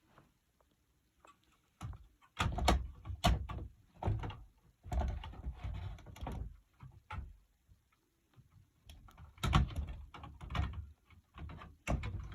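Irregular knocks, clunks and rubbing in two bouts, from a fire alarm being handled and fitted back onto its mount.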